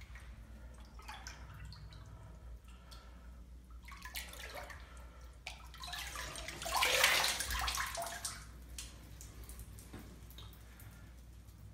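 Water sloshing and dripping in a hydrographic dip tank as a motorcycle fender is worked through the print film and lifted out. The splashing is loudest about two-thirds of the way through, as the part comes out of the water.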